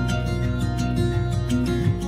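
Background music: acoustic guitar with plucked strings, steady and unbroken.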